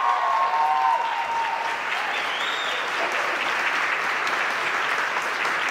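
Audience applause and cheering at the end of a folklorico dance number, with a short high whoop about two and a half seconds in. A held musical note fades out during the first second as the clapping swells.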